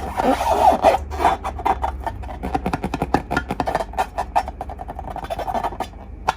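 Slime being squeezed and kneaded by hand: rapid, irregular sticky clicks and crackles.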